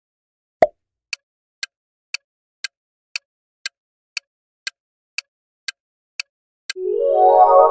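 Countdown-timer sound effect: a single thump, then an even clock-like tick about twice a second for some five seconds, ending in a ringing chime of several tones that marks time up.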